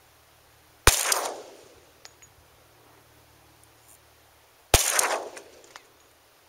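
Two pistol shots, about four seconds apart, from a Glock 20 in 10mm Auto fitted with a 6-inch Lone Wolf barrel, each followed by about a second of fading echo. Faint short clicks follow each shot.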